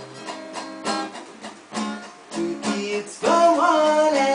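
Acoustic guitar strummed in an offbeat reggae rhythm, about one chord a second. A man's voice comes in singing over it about three seconds in.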